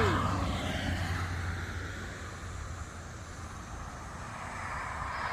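A motor vehicle passing: a low hum with road or engine noise, loudest at the start and fading away over a few seconds, then building again near the end.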